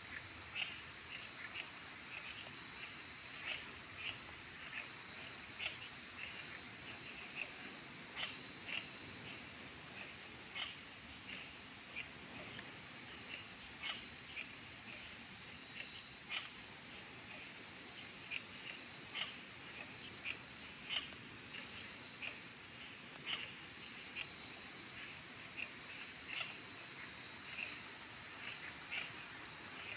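Steady high-pitched drone of night insects, with brief sharp clicks scattered about once or twice a second.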